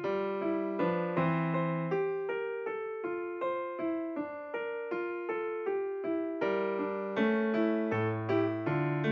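Background piano music: a melody of struck notes in a steady rhythm, a little over two notes a second.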